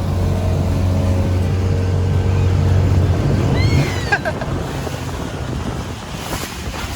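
Motorboat engine running steadily, then easing off about four seconds in, leaving wind and water noise. A brief high call is heard as the engine drops.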